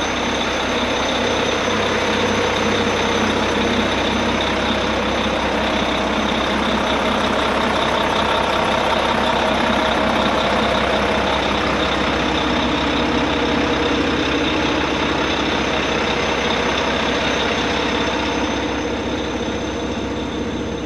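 Mack Pinnacle semi-truck's heavy diesel engine idling steadily, heard close by. It becomes a little quieter near the end.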